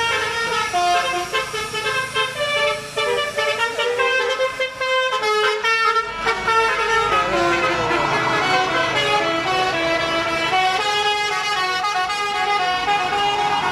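Indonesian 'telolet' musical bus horn playing a tune, several horn tones sounding together and stepping up and down in pitch about two or three notes a second.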